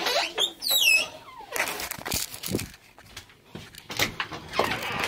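A door being opened, with a short high squeak that falls in pitch in the first second, then a run of knocks and clunks as the door is pushed through and swings.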